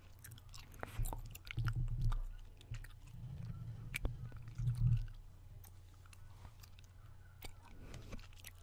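Gum chewing: wet smacks and clicks of the mouth, with a few heavier low thumps between about one and five seconds in.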